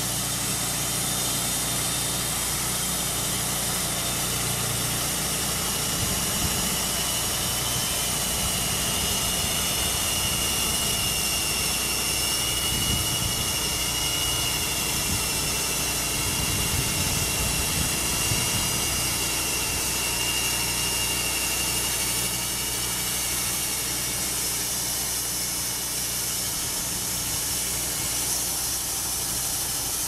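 Homemade band sawmill running steadily on its small engine while the band blade saws lengthwise through a birch log. A thin, high steady whine rides over the engine through the middle of the cut.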